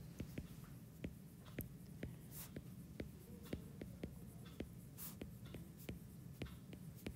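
Stylus tapping and scratching on a tablet screen while handwriting words: irregular light clicks, about two or three a second, over a faint low hum.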